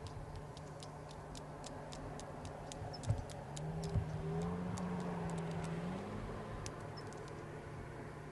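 A person making a run of sharp, irregular echolocation clicks, about two or three a second. Midway a low hum rises and falls, with a couple of dull thumps.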